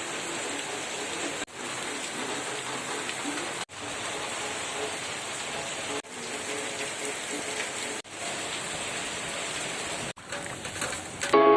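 Steady rain falling, an even hiss of rain on surfaces that drops out for an instant about five times.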